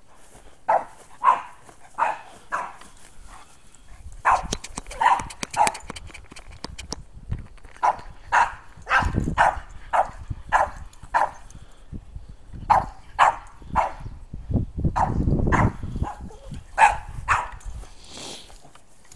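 Dogs barking in repeated short bursts of several barks each, with a low rumble twice in between.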